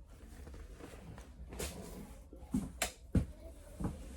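Clothes being handled, with a few short rustles and soft knocks in the second half, the sharpest about three seconds in.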